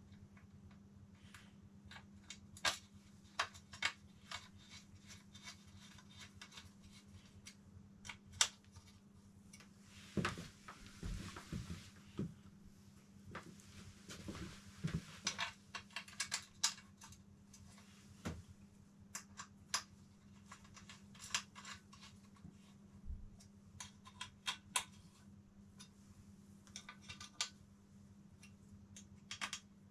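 Hands working a sticker onto a motorcycle windshield: scattered light clicks, taps and rustles, with a denser stretch of rustling about ten seconds in, over a steady low hum.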